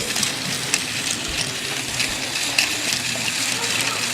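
Toy Thomas train running along its track: a steady hissing whir with scattered small clicks.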